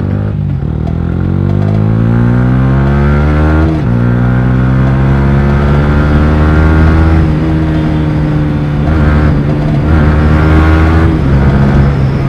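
Yamaha R15 V3's 155 cc single-cylinder engine through an R9 aftermarket exhaust, accelerating on the road: the revs climb for about four seconds, drop at an upshift, then rise slowly and hold steady before another drop near the end.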